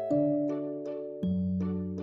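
Gentle background music: soft plucked and bell-like notes over steady sustained bass tones, the notes changing every quarter to half second.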